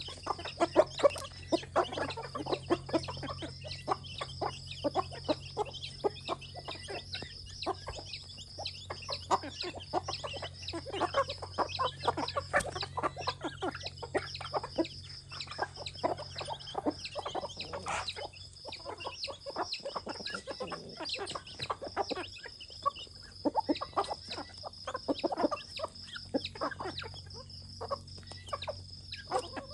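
A flock of chickens clucking as they forage, a dense, continuous run of short clucks and pecks. A steady high-pitched drone sits underneath.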